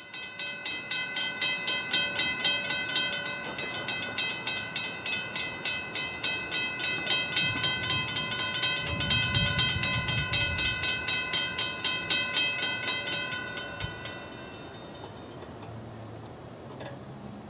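Railroad crossing bell ringing steadily and rapidly while the crossing lights flash and the gates come down, then falling silent about fourteen seconds in. A low rumble swells and fades about halfway through.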